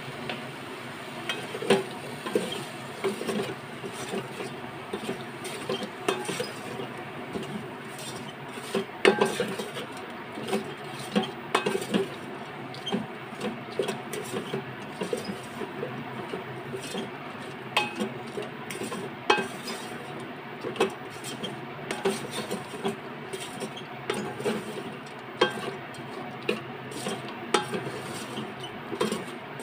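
Wooden spatula stirring and scraping sliced okra, onions and spices around a metal cooker pot: irregular knocks and scrapes of wood on metal, about one or two a second, over a steady low hum.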